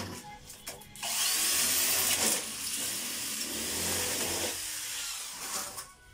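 Handheld electric power tool running, starting about a second in and running for about five seconds, loudest at the start.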